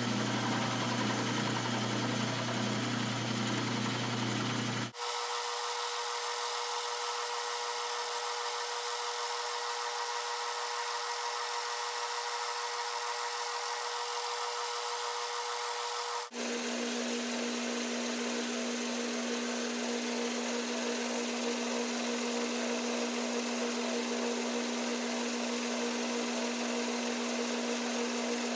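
Sears Craftsman Atlas 12-inch lathe running, turning a cast aluminum billet: a steady machine hum with a hiss of cutting. The hum jumps abruptly to a different pitch twice, about five and sixteen seconds in.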